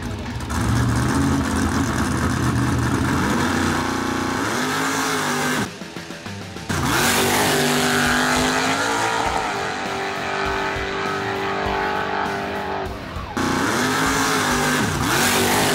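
A drag-race Chevy S-10 pickup's engine at full throttle, launching hard off the line about half a second in and pulling down the strip. Its pitch climbs and then falls back again and again as it goes through the gears.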